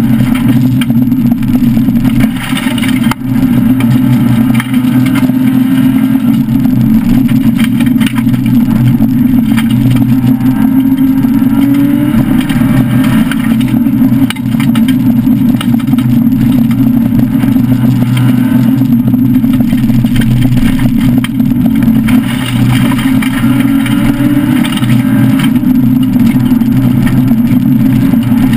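Citroën SM rally car's Maserati V6 running hard under load, heard from inside the cabin, with steady road and tyre noise over it. The loudness dips briefly a few times and the engine pitch climbs a little around halfway and again near the end.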